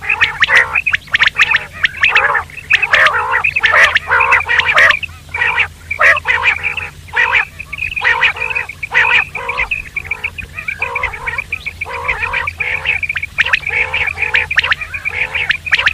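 Common quail calling in a fast, almost continuous run of short, harsh, nasal notes that repeat many times a second with only brief pauses. A steady low hum lies underneath.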